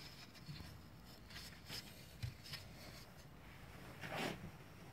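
Faint handling sounds of a large wooden bevel square being moved and swung on its pivot: a few light clicks and scuffs, and one soft swish about four seconds in.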